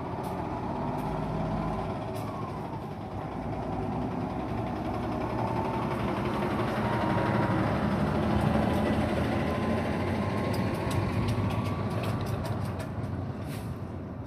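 A motor vehicle's engine running nearby, a steady low hum that grows louder toward the middle and then eases off. A quick run of faint clicks comes near the end.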